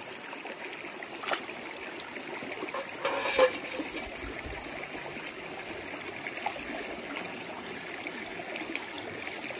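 Shallow stream of clear water running steadily over a pebble bed and around a rock, a continuous rushing trickle. A brief louder splash stands out about three seconds in.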